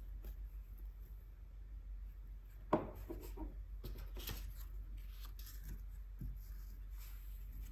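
Paintbrush rubbing gouache onto paper in soft, scratchy strokes, with one sharp knock a little under three seconds in.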